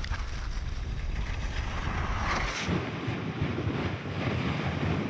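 Wind buffeting the microphone as a team of sled dogs runs over snow. About two and a half seconds in, the low rumble drops away and a busier rushing noise from the moving dog sled carries on.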